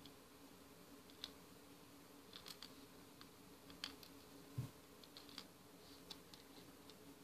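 Faint, scattered light clicks of small plastic hama beads being handled and pressed onto a plastic pegboard, with one slightly louder knock about halfway through.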